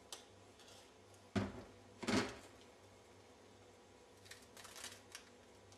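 Quiet kitchen with two short soft knocks about a second and a half and two seconds in, then a few light clicks and rustles near the end: things being handled on a kitchen counter.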